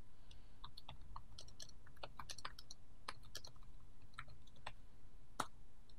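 Typing on a computer keyboard: irregular key clicks with one louder keystroke near the end.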